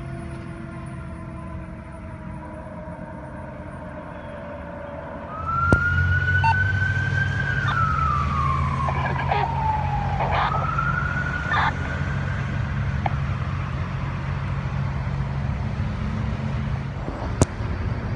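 Ambulance sirens: for the first five seconds a siren winds down in a slow falling pitch, then a louder siren wail sweeps up and down over a steady low drone. A single sharp click comes near the end.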